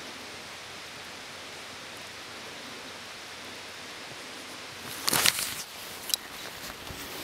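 Steady, even background hiss, then about five seconds in loud rustling and knocking of camera handling noise as the camera is swung around, with a shorter knock a second later.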